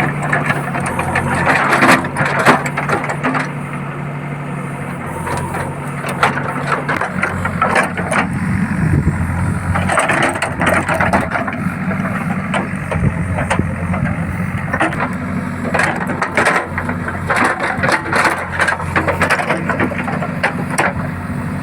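JCB backhoe's diesel engine running steadily while its bucket scrapes up roadside debris, with irregular cracking and crunching of wood and brush.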